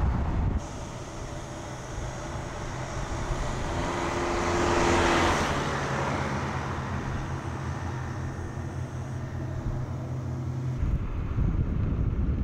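Volkswagen Tayron SUV driving past: tyre and engine noise swells to a peak about five seconds in as it goes by, then settles to a steady low hum. A low rumble sits under the first half second and returns near the end.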